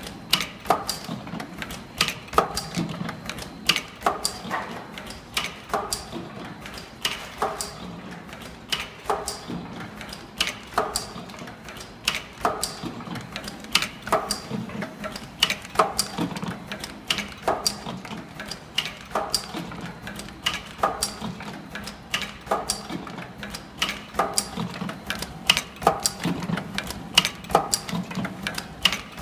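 Tea bag packing machine running, with a steady rhythm of mechanical clicks and clacks, about two to three a second, over a low hum.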